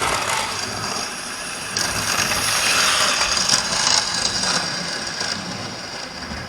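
Model train running on the layout's track: a rattling whirr of its motor and wheels that swells for a couple of seconds, about two seconds in, as it passes close by, then eases off.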